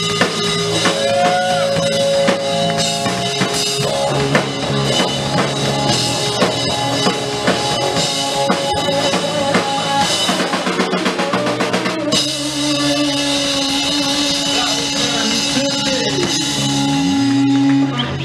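Live rock band: an electric guitar solo with held, bent notes over drums and bass guitar. About a second before the end the notes slide down in pitch into one loud held note.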